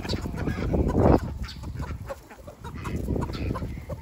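Flock of chickens clucking while feeding, with a brief louder rush of noise about a second in.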